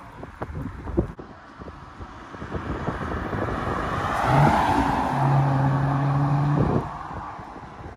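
An Audi SQ5's six-cylinder engine and aftermarket exhaust as the car drives past. The engine note swells as the car nears, holds a steady pitch while it passes, rises briefly near the end, then fades away.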